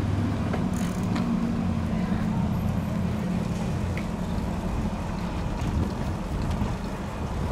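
Steady wind and road noise from riding a bicycle along a paved street, with a low engine hum from a nearby motor vehicle that fades out about three seconds in.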